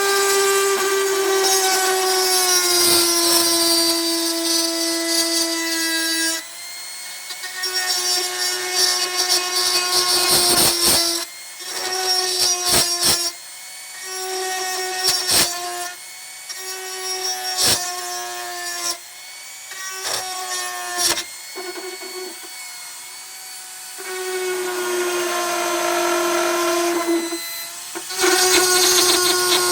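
Electric rotary tool with a rotary file burr cutting steel body panel: a high motor whine that stops and starts several times, sagging a little in pitch as the burr bites. Sharp knocks and taps come in some of the pauses.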